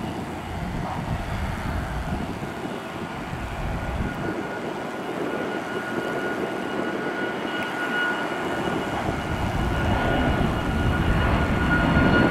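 Boeing 737 airliner's jet engines at climb power just after takeoff: a steady rumble with a high, steady fan whine, growing louder as the plane climbs toward overhead.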